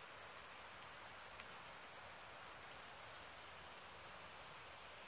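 Insects in the trees shrilling: a steady, faint, high-pitched drone that sits a little lower in pitch in the second half.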